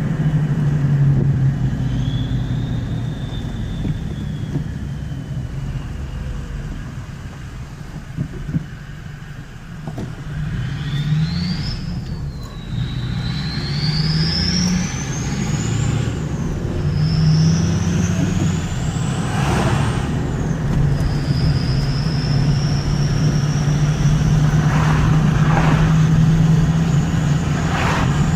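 Ford F350's turbocharger whistling over the engine's low drone. The thin high whistle climbs in pitch and falls back sharply three times, then holds and creeps slowly upward.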